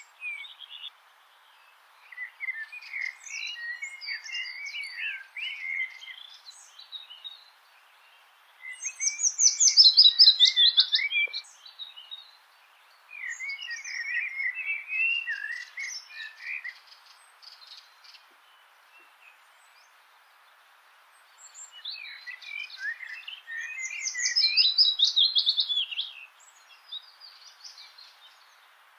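A songbird singing long, varied warbling phrases, four of them with pauses between. The loudest parts, near the middle and again near the end, rise into high, squeaky twittering. A steady faint hiss lies underneath.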